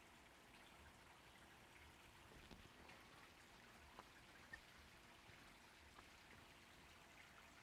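Near silence with a faint steady hiss, broken by a few faint clicks of a plastic handlebar mount being handled and pried open.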